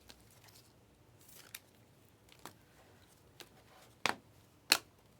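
Stiff chromium trading cards being handled and flipped, giving a soft scrape and then a string of sharp clicks and snaps, the loudest two near the end.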